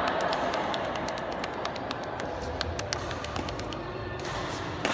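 Badminton hall sounds: scattered sharp taps of rackets hitting shuttlecocks and shoes on the court floor, over a steady room hum, with a louder racket-on-shuttlecock hit near the end.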